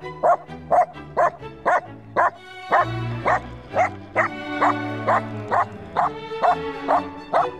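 Small dog barking over and over, about two sharp barks a second, over background music.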